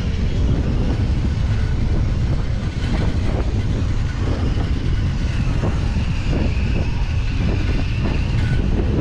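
Wind buffeting the microphone of a camera on a moving bicycle: a steady, heavy low rumble.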